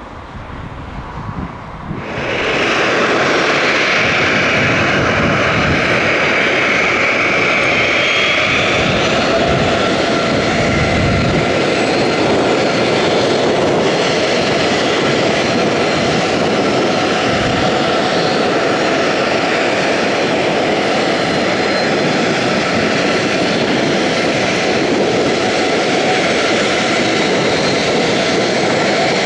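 Boeing 737-700's CFM56 jet engines, loud and steady, rising sharply about two seconds in.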